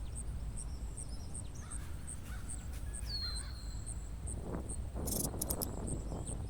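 Outdoor ambience: an insect chirping steadily, about three chirps a second, with a bird's single down-slurred whistle about halfway through. A brief cluster of clicks comes near the end, over a low wind rumble.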